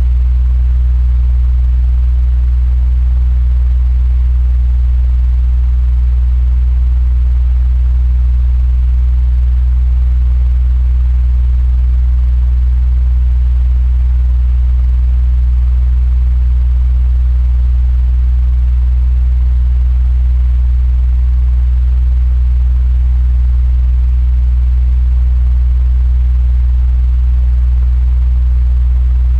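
Electric fan running steadily: a strong, even low hum with a faint airy hiss above it.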